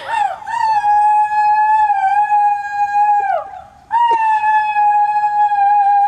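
A girl imitating a wolf howl: a long, steady held note that falls away at its end, then a sharp breath and a second long howl held on the same pitch.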